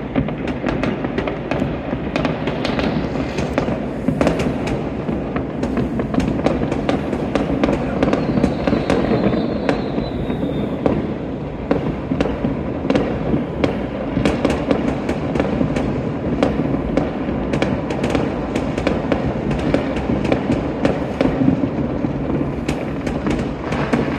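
Fireworks going off all over a city at once: a continuous din of distant bangs, dense with many sharp cracks and pops, with one high, falling whistle about eight seconds in.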